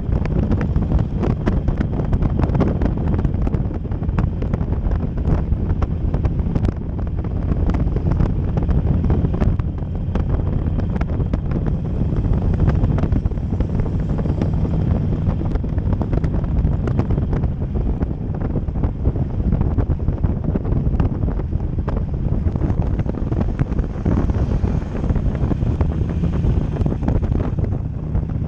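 Harley-Davidson Sportster V-twin engine running as the motorcycle rides along, with heavy wind buffeting on a helmet-mounted microphone. The engine's low, steady drone comes through more clearly near the end.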